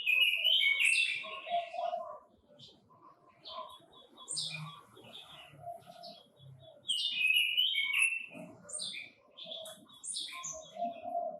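Red-billed leiothrix (Pekin robin) singing: loud bursts of quick warbling phrases every few seconds, with softer chirps in between.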